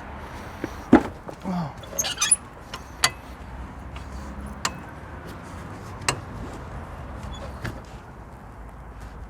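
Scattered metallic clinks and knocks from hand tools and car suspension parts being handled, with a short jangle about two seconds in, over a low steady hum.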